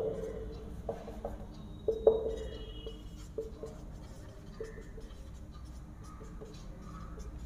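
Marker pen writing on a whiteboard: a run of short squeaky, scratchy strokes as the letters are drawn, the loudest at the very start and about two seconds in.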